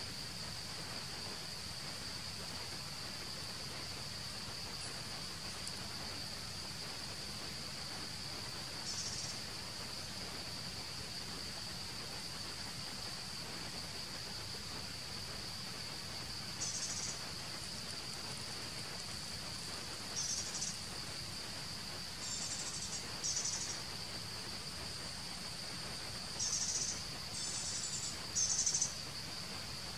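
Steady high insect drone, with short bursts of higher insect trilling that come more often in the second half, several close together near the end.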